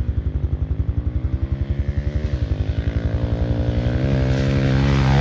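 Pit bike engine running at low revs, a steady single-cylinder beat of about twelve pulses a second. About four seconds in it grows louder and smoother as the bike comes closer.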